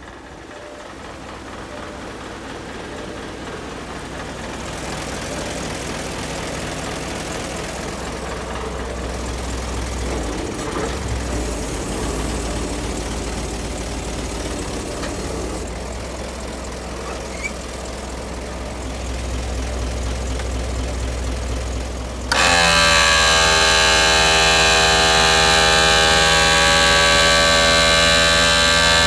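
Isuzu Giga truck's diesel engine idling with a steady low rumble that grows louder as the engine bay is approached. About 22 seconds in, a loud, steady, high whine with many overtones starts abruptly and holds over the idle.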